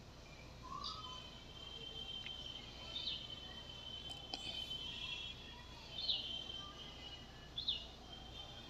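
Faint bird chirps: four short, high notes that each sweep quickly downward, a second or two apart, over a faint steady high-pitched drone.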